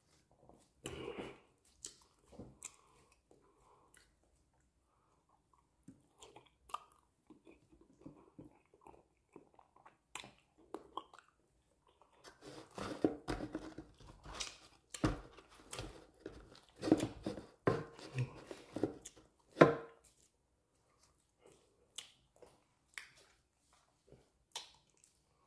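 Close-miked chewing and eating noises of a man eating amala with banga soup and fish by hand. They come as irregular wet clicks and smacks, busiest and loudest from about 12 to 20 seconds in.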